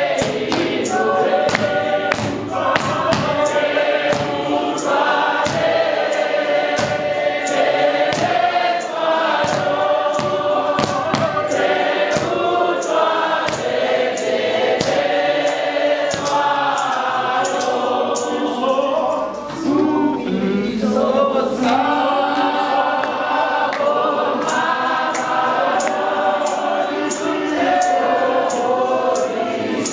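Church congregation singing a hymn together in several voice parts, with a steady, regular beat struck along in time.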